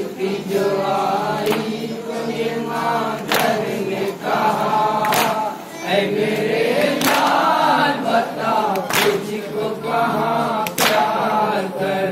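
A Muharram noha chanted by a group of voices, led by a boy at a microphone, with sharp chest-beating slaps (matam) landing together about every two seconds in time with the chant.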